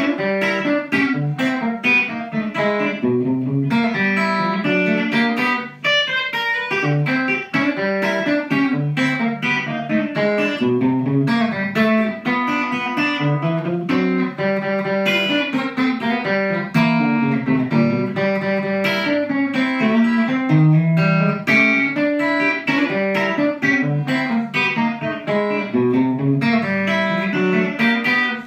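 Fender Telecaster electric guitar played solo in a fast country style, a steady stream of picked notes with a bass line moving under the melody.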